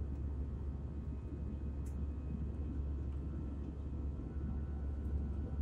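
Steady low rumble of the jet engines and rushing air inside a jet airliner's cabin during the climb after takeoff. A faint short tick sounds about two seconds in.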